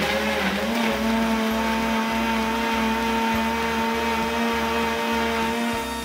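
JTC OmniBlend I heavy-duty blender running, puréeing pineapple chunks with water until smooth. The motor comes up to speed in the first second with a slight rise in pitch, runs with a steady whine, and cuts off just before the end.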